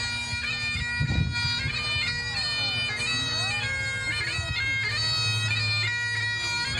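Bagpipes playing a tune: the chanter's melody steps from note to note with quick grace-note flourishes over the steady drones.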